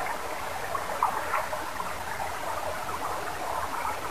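Shallow stream water running over rocks, a steady babble.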